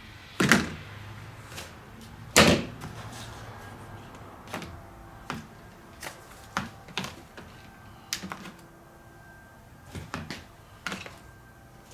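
Plastic laptop battery packs being set down and stacked one on another: a series of irregular sharp clacks and knocks, the two loudest in the first few seconds, then lighter taps as they are shifted into place.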